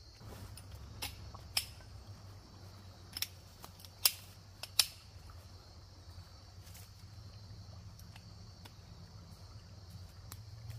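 Metal poles of a compact folding camp chair clicking and snapping into place as it is assembled: about five sharp clicks, the loudest two near the middle. A steady insect chorus runs underneath.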